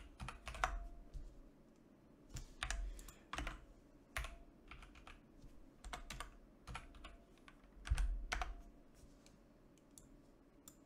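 Computer keyboard being typed on in short, irregular bursts of key clicks, with a few low thuds among them, the loudest about eight seconds in.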